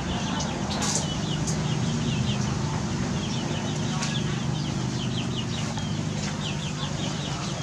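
Birds chirping in quick runs of short high notes, over a steady low hum.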